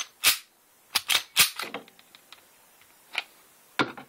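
Sharp metallic clicks and slides of a Taurus PT 24/7 Pro pistol's slide being pushed forward off the frame while it is field-stripped. The clicks come in a quick cluster over the first second and a half, then two more near the end.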